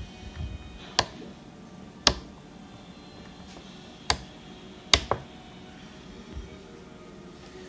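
Toggle switches on a Spektrum DX6i RC transmitter being flipped: five sharp clicks, the last two close together about five seconds in. There is a little handling of the transmitter at the start.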